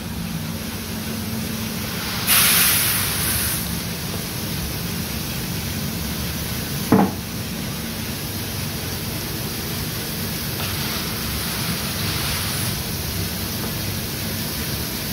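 A coffee roaster running with a steady whir. Over it come two rushing hisses as green coffee beans are tipped into the roaster's hopper: a loud one about two seconds in and a softer one about eleven seconds in. A single sharp knock comes about seven seconds in.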